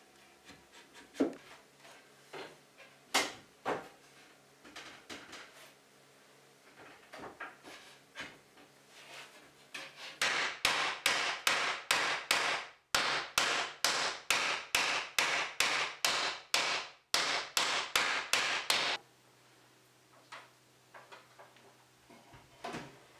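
Wooden mallet striking a tulip poplar frame to drive tight mortise-and-tenon joints home. A few scattered knocks first, then from about ten seconds in a fast run of sharp blows, about three a second, that lasts about nine seconds with two brief pauses.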